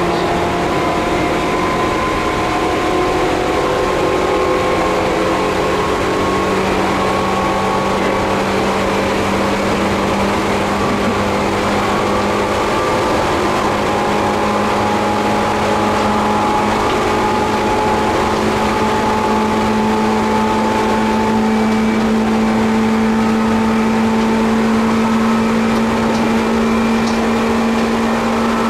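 Seibu 2000 series field-chopper-controlled electric train running, heard from inside the motor car's cabin: the traction motors and gears hum in several tones that rise slowly in pitch as the train gains speed, over steady wheel and rail rumble.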